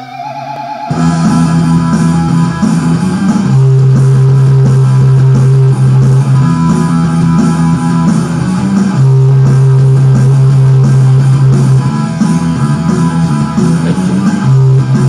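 Rock music led by electric guitar over bass guitar. It opens on a held high guitar note, and the full band comes in about a second in.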